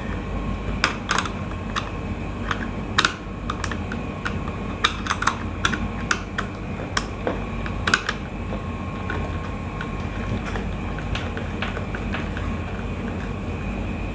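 Irregular small clicks and taps of a screwdriver and wire working a plastic magnetic contactor's screw terminal, as a wire is fitted to the coil terminal and screwed down. The clicks come thick for about eight seconds, then thin out to a few over a steady background hum.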